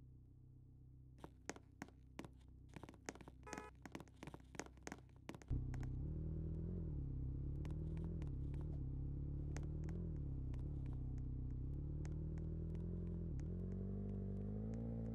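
A run of clicks and knocks, then about five seconds in a motor starts abruptly and runs with a steady low hum, its pitch wavering slightly and rising a little near the end.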